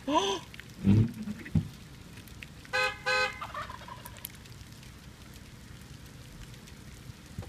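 Wild turkey gobbling in short calls, with a car horn beeping twice in quick succession about three seconds in.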